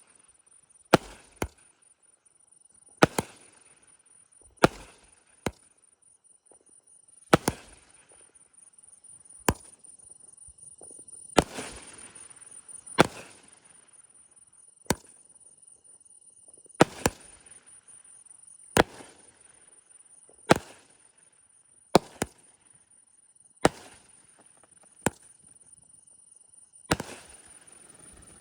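Multi-shot aerial firework cake firing, one sharp bang every second or two, sometimes two close together, with crackling in between.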